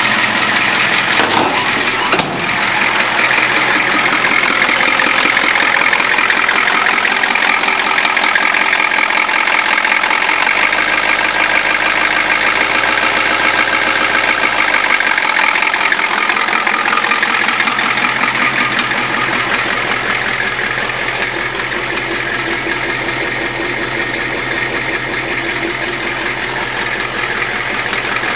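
A 7.3 IDI V8 diesel swapped into a 1979 Ford F250 idling steadily just after a cold start, with a rapid, even clatter.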